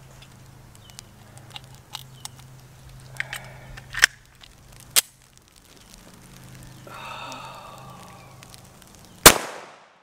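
Sharp metallic clicks of a compact 9mm pistol being handled and reloaded, two of them distinct about four and five seconds in. Then a single loud pistol shot with a short echo near the end, after which the slide fails to lock back.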